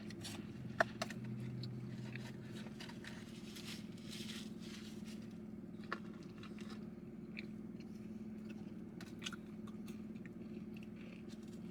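Faint chewing and crunching of food, with scattered small clicks and rustles, over a steady low hum.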